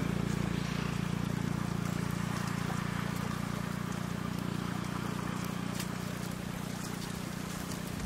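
An engine running steadily with a constant low hum.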